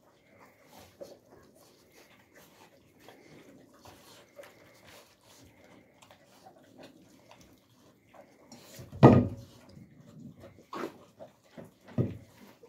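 Alabai puppies eating from metal pans: soft chewing, lapping and smacking throughout, with a few louder knocks, the loudest about nine seconds in.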